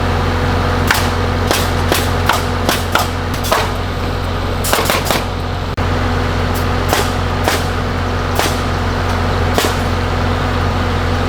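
An engine runs steadily with a low hum while nails are driven: about fifteen sharp, irregularly spaced cracks.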